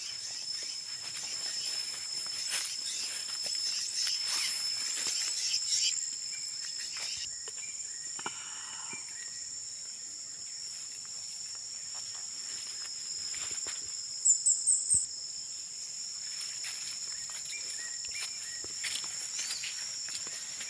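Steady, high-pitched drone of forest insects, with crackling rustles in the first few seconds. About fourteen seconds in, four quick, sharp, rising chirps sound in a row, louder than the drone.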